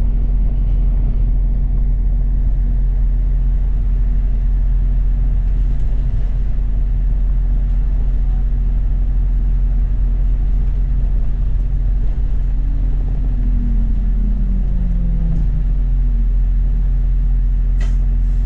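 A London bus running along the road: a steady low rumble of engine and road noise with a constant low hum. About two-thirds of the way through, a humming tone slides down in pitch.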